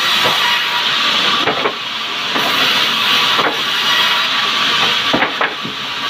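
Sawmill saw running and cutting through a log, a loud, steady hissing noise of the blade in the wood. A few brief knocks and short dips in level come through as the timber is shoved along the feed table.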